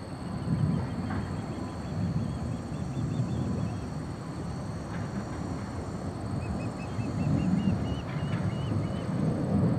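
Distant rumble of Blue Angels F/A-18 Super Hornet jets flying in formation, swelling and fading several times. A bird sings two runs of quick repeated chirps over it.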